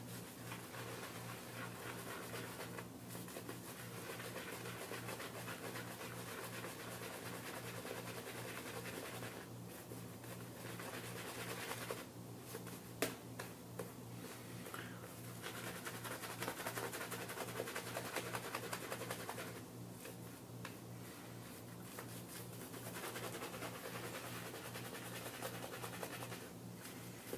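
A shaving brush scrubbing soap lather onto a face: a dense, scratchy bristle noise that pauses briefly several times, over a low steady hum.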